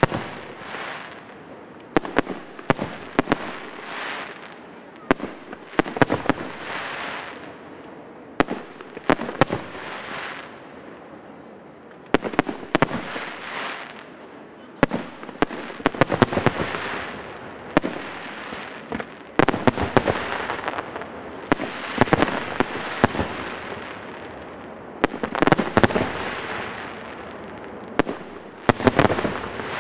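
Fireworks display: aerial shells bursting with sharp bangs every second or two, often several in quick succession, each followed by long crackling and fizzing as the stars burn out.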